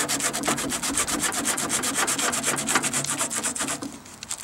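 Sandpaper rubbed by hand over a primed sheet-metal sidecar fender, a fine-grit scratching in rapid, even back-and-forth strokes. The strokes pause briefly near the end, then start again.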